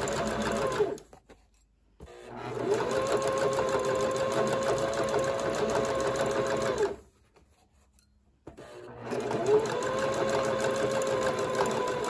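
Domestic electric sewing machine topstitching with an edge-stitch foot, its motor whining in three stop-start runs. Each run speeds up and slows down. The first stops about a second in, the next runs about five seconds, and the machine starts again for the last few seconds, with brief pauses between.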